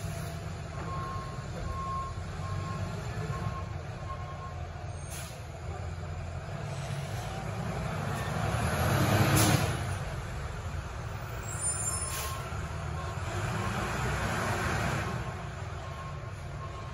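Garbage truck (New Way Sidewinder automated side loader) running in the distance with its reversing alarm beeping, about one beep every three-quarters of a second, for the first few seconds and again in the last several seconds. A louder rushing swell of noise builds and peaks about nine seconds in.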